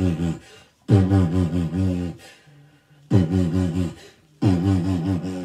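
Intro music: a low, buzzy riff played in four short phrases of quick pulsing notes, with brief gaps between the phrases.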